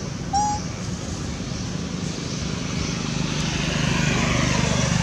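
A steady low engine drone that grows louder from about three seconds in. A single short squeak comes about half a second in.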